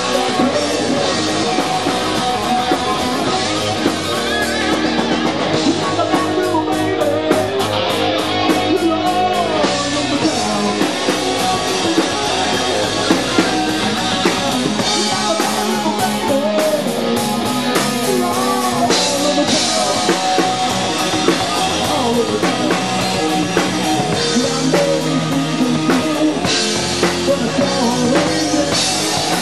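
Live rock band playing loudly: electric guitar, bass guitar and a drum kit, with a man singing into a handheld microphone. A quick run of drum hits comes a few seconds in.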